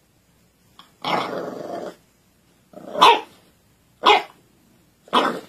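Bulldog puppy giving a short growl, then three short barks about a second apart.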